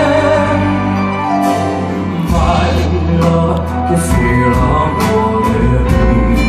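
Live band music with a male singer holding a note with vibrato; about two seconds in, bass and drums come in with regular cymbal hits under the voice.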